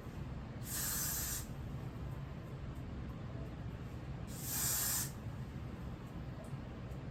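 Two short bursts of hair spray from an aerosol can, about three and a half seconds apart, over a steady low hum.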